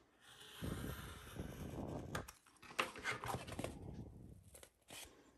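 Craft knife scoring stiff chipboard in a few scraping strokes, cutting only partway through the board so it can be folded, followed by the board being picked up and handled.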